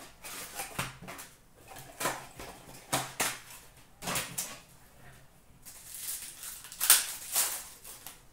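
Foil trading-card packs crinkling and rustling as they are taken out of a cardboard hobby box and set down in a stack, in short irregular rustles, the loudest about seven seconds in.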